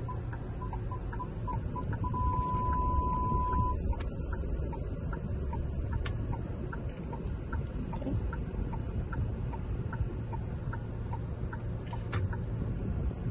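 Proton X50's turn-signal indicator ticking steadily inside the cabin over a low engine rumble as the car steers itself out of a parallel parking space. About two seconds in, the parking sensor's beeps run together into a continuous tone for under two seconds, the warning that an obstacle is very close. A few sharper clicks stand out.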